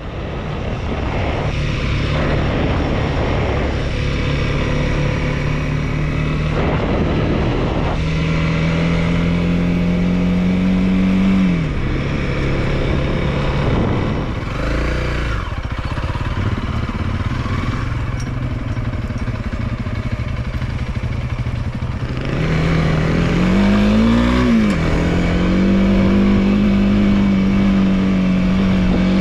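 Honda CRF300L single-cylinder dual-sport motorcycle engine running under way. The engine note holds steady, climbs about eight seconds in, drops sharply near twelve seconds, climbs again around twenty-two seconds with a quick rise and fall near twenty-four seconds, then holds steady to the end.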